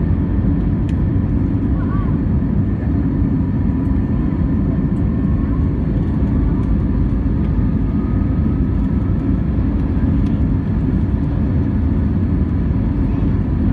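Steady low rumble of an Airbus A320neo's engines and airflow heard from inside the cabin while taxiing, with faint whines above it.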